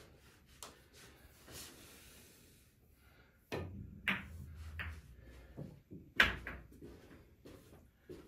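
Pool balls during a shot on a pool table: sharp clicks of the cue striking the cue ball and balls colliding, with a low rumble of a ball rolling on the cloth, then a few softer knocks as the object ball is pocketed and the cue ball comes off the rails. The loudest click comes a little past six seconds in.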